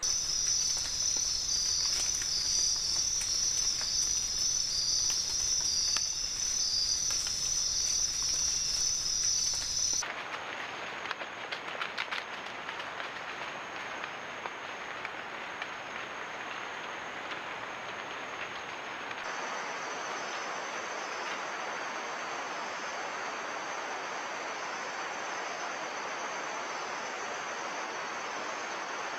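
Rainforest insect chorus: a steady high-pitched trilling of many insects over a constant hiss. The chorus changes abruptly about ten seconds in and again about two-thirds of the way through, and a few faint ticks come shortly after the first change.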